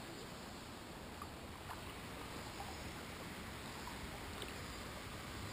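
A mountain river flowing, heard as a steady rushing hiss, with a few faint ticks.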